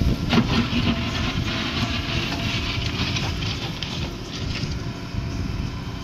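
JCB 3DX backhoe loader's diesel engine working under load as the backhoe bucket digs into soil and lifts it, with some clattering in the first second.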